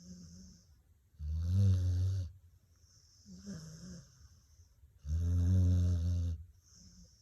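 Dog snoring in sleep: two loud, low snores about a second long each, with softer hissing breaths between them, in a slow, regular rhythm.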